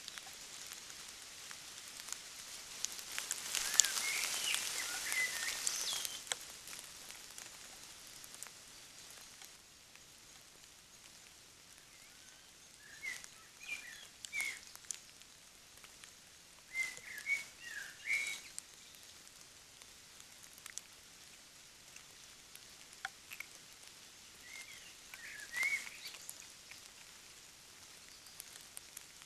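Rustling and scuffing from red foxes moving about the den close to a trail camera, with a few scattered clusters of short, high chirping squeaks.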